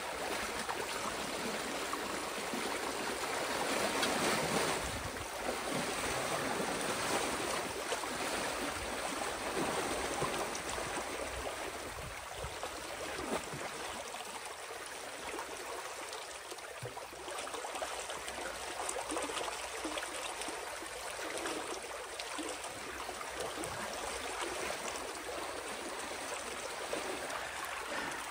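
Water rushing through a breach in a beaver dam and down the draining channel, a steady stream of running water. It swells briefly about four seconds in.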